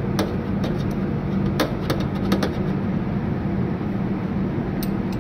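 Steady background machine hum with a constant low drone, with a few light clicks and taps as a bamboo sushi mat is pressed and rolled on a steel counter.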